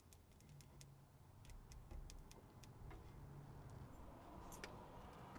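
Faint, scattered light clicks and ticks over a low steady hum.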